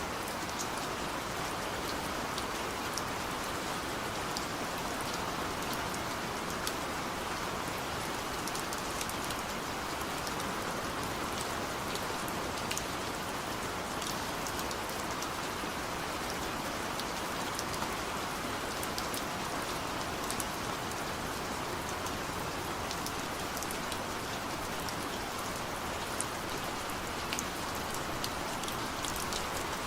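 Steady rain falling, a dense even hiss with scattered sharp ticks of individual drops hitting a surface.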